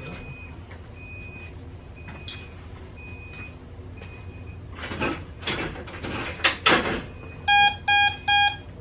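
Hospital equipment beeping: a short high beep repeats about once a second. About five seconds in, rustling and handling noises take over, and near the end there are three loud beeps in quick succession.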